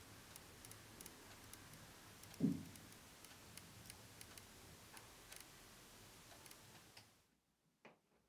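Faint ticking of a Miffy character alarm clock, about two ticks a second, with one dull thump about two and a half seconds in. The ticking cuts off suddenly about seven seconds in, leaving a few faint clicks.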